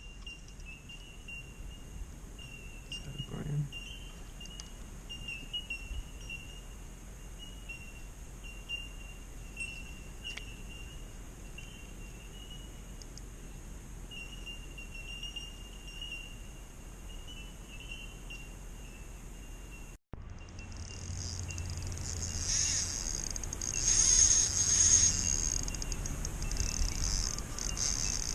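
A steady high-pitched insect chorus drones, wavering a little. After a cut about two-thirds of the way in it comes back louder and higher, swelling a couple of times, over a faint low rumble.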